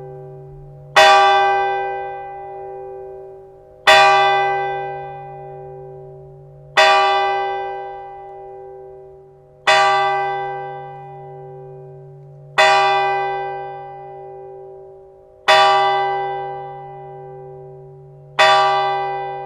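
A single church bell striking at midnight: seven strokes on the same note, about three seconds apart, each one struck sharply and left to ring out and fade before the next.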